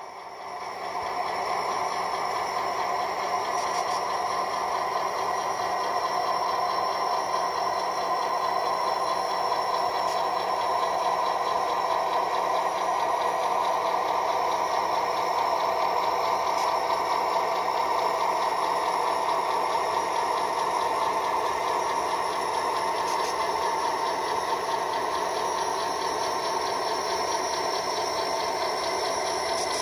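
Model train running: a steady mechanical hum and fine rattle that swells up over the first second and then holds level as flatcars roll along the track.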